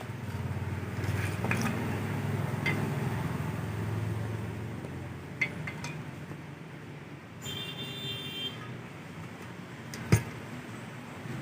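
A low steady rumble like a vehicle engine running, with a few light metal clinks, a brief high tone about eight seconds in, and one sharp knock near the end.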